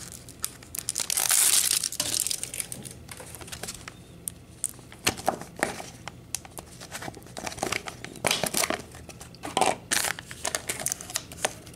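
Plastic toy packaging handled and unwrapped: wrapping crinkling and tearing in several irregular bursts, the longest about a second in, with small clicks as a plastic lid comes off and a plastic packet is pulled out.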